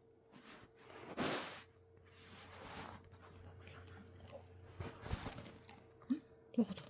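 A cat chewing and crunching on a treat: a run of small irregular crunches and clicks, with a louder rustle about a second in.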